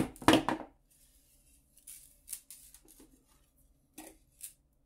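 Light clicks and rustles of small metal jewellery parts (jump rings, a chain) and steel pliers being handled on a wooden tabletop. A sharper knock comes right at the start, followed by a short louder handling noise.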